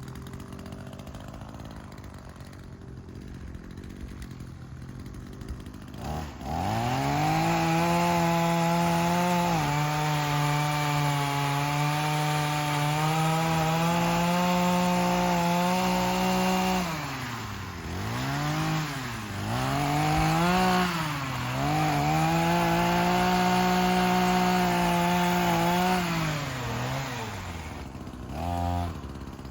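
Small Echo two-stroke saw idling, then revving up to full throttle about six seconds in and running at a high steady pitch while the chain cuts through tree limbs. Midway the engine pitch dips and recovers several times under load, and near the end it drops back to idle with one short blip of the throttle.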